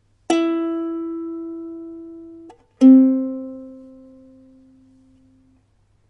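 A ukulele plucked twice, 'pling' then 'plang': a higher note rings out and is cut short, then a lower, louder note about two and a half seconds later rings and fades away.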